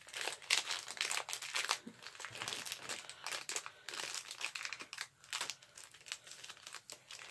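Foil wrapper of a Pokémon card booster pack crinkling continuously in irregular crackles as hands work it open.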